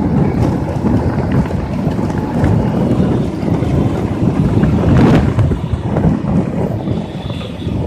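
Wind buffeting the microphone on a moving motorbike, a steady fluttering rush over the noise of road traffic, with a brief louder gust about five seconds in.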